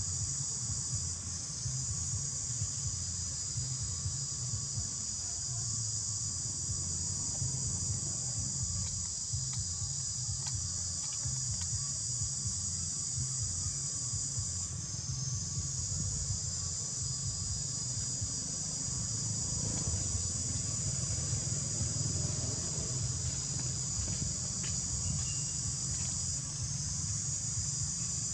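Steady high-pitched drone of an insect chorus, its pitch stepping slightly a few times, over a low rumble.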